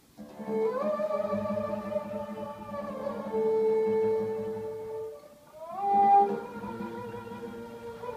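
Kemençes (two soprano, one alto) and an ud playing together: the bowed kemençes hold long notes, sliding up into them about half a second in and again near six seconds, over the ud's repeated plucked notes. The music comes in just after a brief hush.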